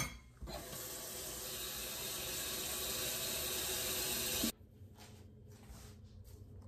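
Kitchen faucet running into a stainless steel sink and over a dishcloth held under the stream: a steady rush of water that grows a little louder, then cuts off suddenly about four and a half seconds in.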